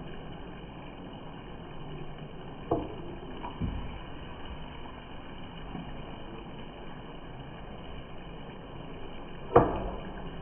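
Wooden spatula stirring chicken pieces in a pan, knocking against the pan a few times, the loudest knock near the end, over a steady low hiss.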